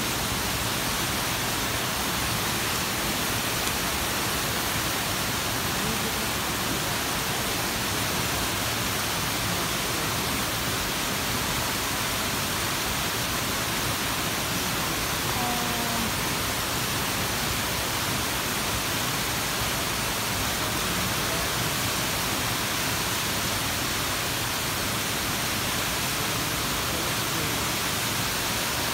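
Waterfall and water cascading over rock close by: a steady, even rush that does not change.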